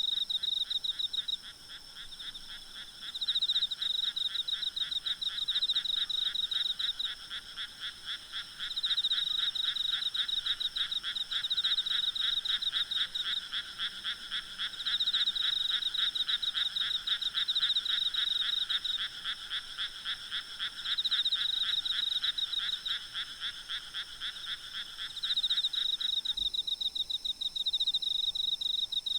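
A chorus of frogs calling in rapid pulsed trills that swell in bouts every few seconds, over a steady high drone of night insects. One of the lower trilling voices drops out near the end.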